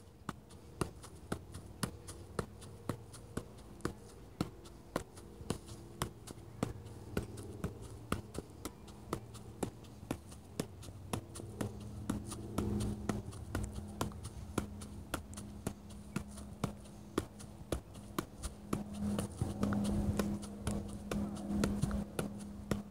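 Soccer ball being juggled on the foot: a steady run of light taps, about two a second, each touch keeping the ball in the air. A steady low hum sits underneath and grows louder near the end.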